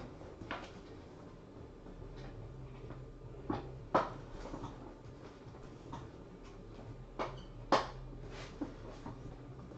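A few scattered short knocks and clicks over a low steady hum, the loudest about four and eight seconds in.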